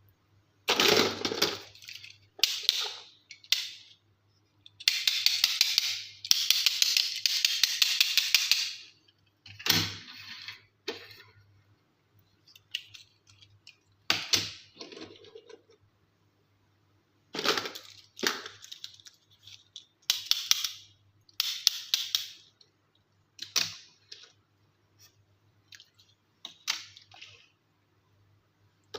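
Toy-unboxing handling sounds: small toys and packaging picked up and set down in bursts of crinkling, clicking and rattling, with a longer stretch of dense crinkling from about five to nine seconds in.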